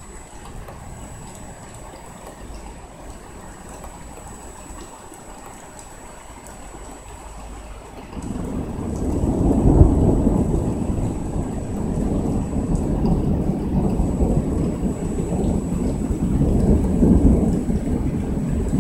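Thunder from a strong thunderstorm over steady rain. A deep rumble builds sharply about eight seconds in, peaks soon after, and rolls on with a second swell near the end.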